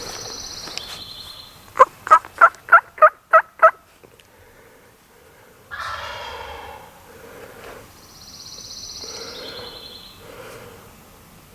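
Wild turkey gobbler gobbling once, about six seconds in, after a quick series of seven loud turkey yelps, about four a second. A songbird's high two-part whistle, stepping down in pitch, sounds twice.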